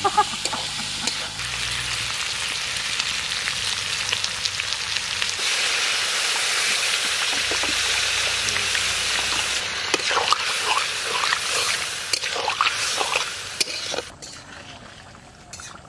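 Chicken curry sizzling as it fries in a pan, a steady hiss, with a few scrapes and knocks of a spatula stirring it later on. The sizzle cuts away about fourteen seconds in, leaving a quieter background.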